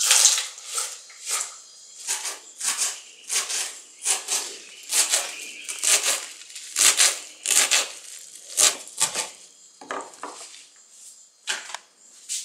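Tap water running into a basin stops just after the start. Then caruru (amaranth) leaves and stems are torn and snapped by hand on a wooden cutting board, making irregular crisp rustling snaps about two a second.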